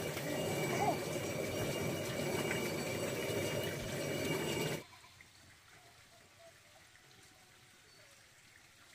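Stone hand mill being turned, its upper millstone grinding grain into flour with a steady grating. It cuts off suddenly about five seconds in, leaving quiet surroundings with a few faint chirps.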